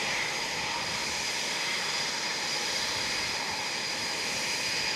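Eurofighter Typhoon's twin jet engines running at taxi power: a steady high whine over a broad rush of noise.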